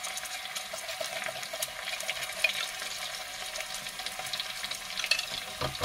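Chopped onions and garlic-chilli paste sizzling in hot oil in a frying pan: a steady hiss with small crackles.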